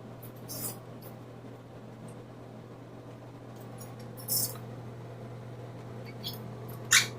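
A few short, scratchy clicks and scrapes, the loudest near the end, over a steady low hum.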